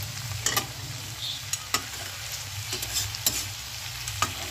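Onions and green peas frying in oil in a metal kadhai, a steady sizzle, with a spatula stirring and clicking against the pan about five times.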